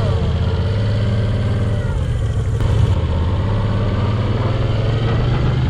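Motorcycle engine running steadily at low revs, its pitch creeping up slightly near the end.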